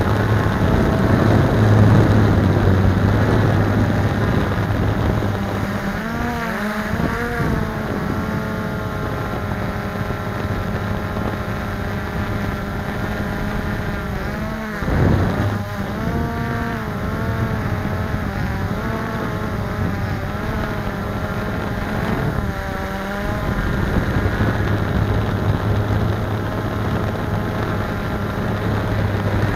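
Blade 350QX quadcopter's electric motors and propellers whining in flight, heard close up from on board. The whine's pitch wavers up and down as the motors change speed, most about six to eight seconds in and again around fifteen and twenty-three seconds, over a steady low hum.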